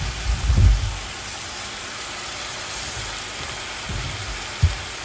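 Mixed vegetables sizzling steadily in a hot steel wok, with a few low thumps in the first second and another near the end.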